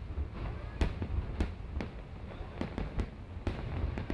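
Aerial fireworks shells bursting: about nine sharp bangs at uneven intervals over a continuous low rumble.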